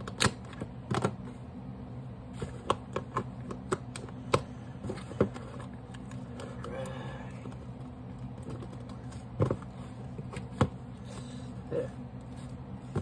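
Irregular small hard-plastic clicks and taps from a SanDisk Sansa MP3 player being handled with both hands, some spaced closely, others seconds apart, over a steady low hum.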